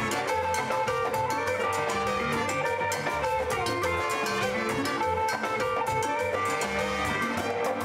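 Live Latin funk band playing: horns, electric guitars, bass, drum kit and congas together with a dense, steady beat.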